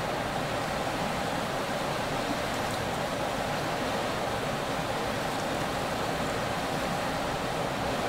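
Steady rushing of river water flowing over rocky shallows, an even wash of noise without breaks.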